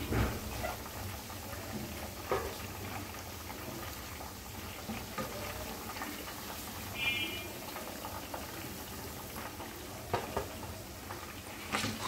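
Chicken pieces frying in hot oil with a steady sizzle, while a wire mesh skimmer lifts them out. A few short knocks, from the skimmer against the pan, come near the start, about two seconds in and twice near the end.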